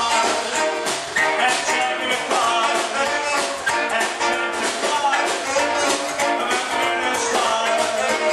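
Live 1950s-style rock'n'roll band playing with a steady beat: upright double bass, electric guitar and drums, with singing.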